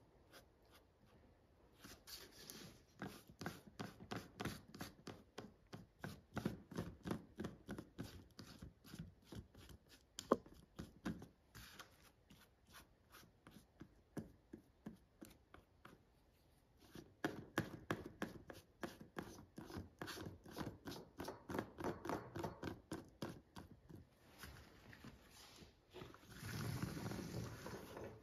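A brush spreading contact adhesive on leather: quick, even scratchy strokes, a few a second, in two long runs with a short lull in the middle.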